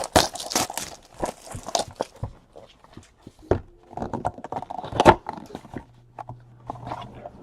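Crinkling, tearing and clicking of packaging as a sealed trading-card box is opened by hand, with irregular rustles and small knocks of the cards being handled.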